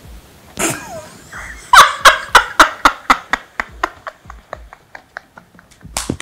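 A woman laughing hard: a long run of short ha-ha bursts, about four a second, loudest at first and trailing off, with a louder burst again near the end.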